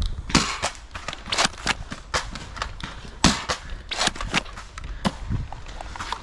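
Nerf foam-dart blasters firing: a dozen or so sharp, irregular pops and clacks.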